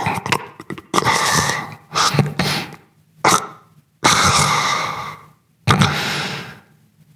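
A person making mouth sound effects: a series of about six breathy, hissing bursts, most about a second long, with short gaps between them.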